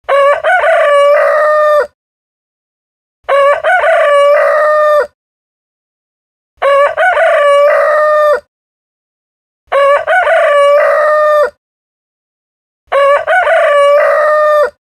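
A rooster crowing cock-a-doodle-doo five times, evenly spaced about three seconds apart, each crow just under two seconds long. The crows are identical in shape, with dead silence between them, like one recorded crow repeated.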